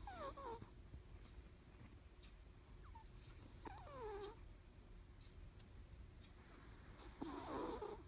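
Sleeping cat snoring faintly: three breaths about three and a half seconds apart, each with a falling whistle and a soft hiss.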